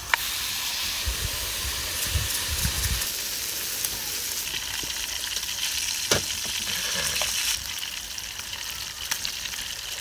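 Food frying in a hot pan, a steady sizzle with a few sharp clicks about six to seven seconds in.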